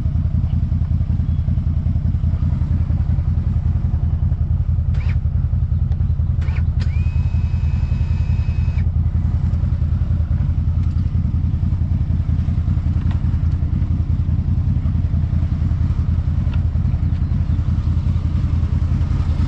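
Quad bike (ATV) engine running steadily at an even speed, without revving. About a third of the way in, a high steady tone sounds over it for about two seconds.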